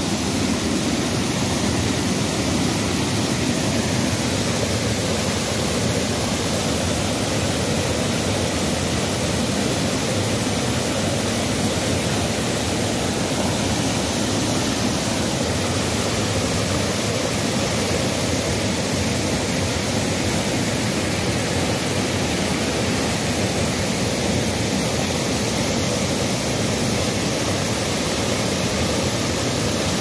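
Waterfall cascade heard from close by: water pouring over a broad rock ledge and churning in the pool below, a loud, steady rush.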